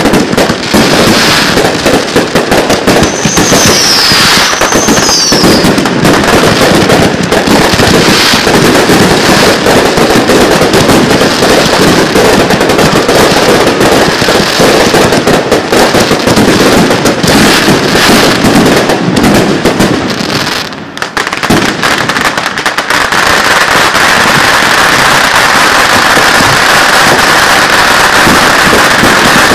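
Finale barrage of 1.3G display fireworks: aerial shells bursting in rapid, continuous succession, very loud. A whistle rises and falls about three seconds in, and the barrage dips briefly about twenty-one seconds in before going on as a steadier rush of noise.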